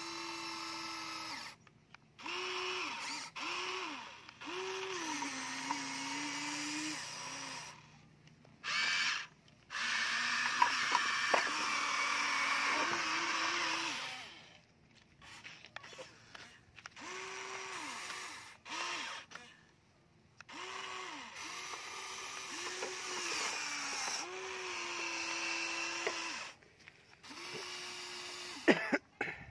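Electric motors of a HUINA remote-control toy excavator whining in repeated bursts of one to three seconds, starting and stopping and shifting pitch as the boom, arm and bucket move. A few small clicks come about a third of the way in, and a sharp click comes near the end.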